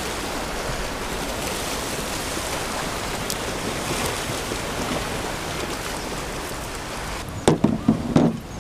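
Ocean surf washing against a rocky lava shoreline below, a steady rush. Near the end a few short, loud knocks and rustles break in.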